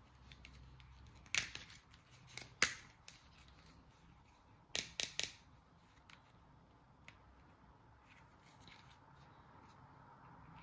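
Sharp clicks and snips from packaging being handled: a few single ones, then three in quick succession about five seconds in.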